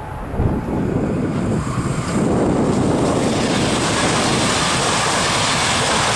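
SBB ETR 470 tilting electric train passing close at speed: a rush of wheel and air noise that builds and becomes loud and steady about two seconds in.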